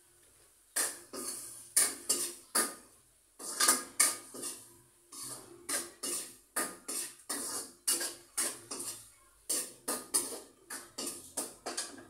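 Metal utensil scraping and knocking against a cooking pot in many quick, irregular strokes as the pot is stirred, starting about a second in.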